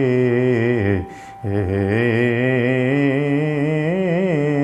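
A male singer holding long, wavering sung notes on a vowel in a Telugu chant-like melody; the first note breaks off about a second in and a second long note follows after a short breath.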